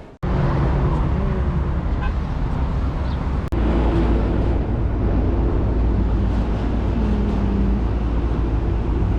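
Metro train running: a steady low rumble with a held motor hum, heavier after a cut a few seconds in.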